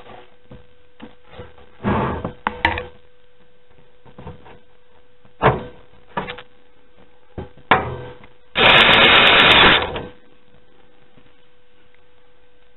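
Scattered clicks and knocks of screws and a screwdriver against the metal case as a motherboard is screwed down, then a loud rushing noise of about a second and a half near the end, over a faint steady hum.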